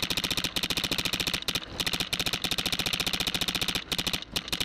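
Empire Axe electronic paintball marker firing fast ramping strings of shots, more than ten a second, with short breaks about half a second, a second and a half, and four seconds in.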